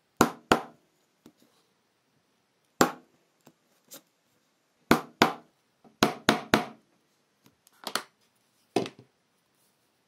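A mallet striking a multi-prong leather stitching chisel, punching stitching holes through a strip of leather on a punching board: about ten sharp knocks, in ones, pairs and a run of three.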